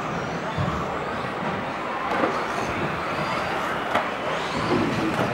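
RC model buggies racing on an indoor track, their motors whining in faint rising and falling glides as they pass, over the steady din of a crowded hall. A sharp knock comes about four seconds in.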